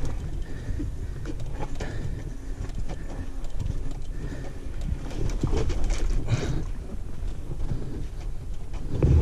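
Motorcycle going down a rough dirt track: a constant low rumble of wind on the microphone and tyre noise, with irregular knocks from the suspension and stones.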